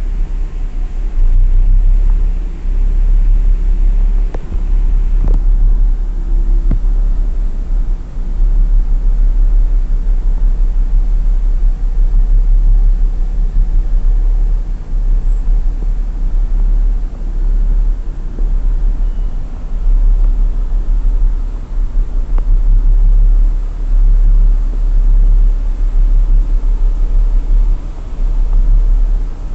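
Steady low rumble inside the cab of a diesel-powered railway OHE inspection car, its engines running, swelling and easing unevenly every few seconds. A sharp click about five seconds in.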